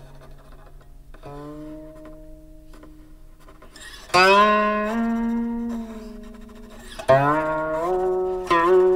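Guqin played solo: soft notes sliding in pitch, then a loud plucked note about four seconds in and another about three seconds later, each ringing on while its pitch slides.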